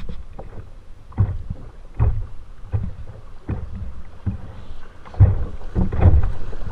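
River water slapping and splashing against a kayak's bow as it runs through a riffle. A low thump comes about every three-quarters of a second, heaviest near the end.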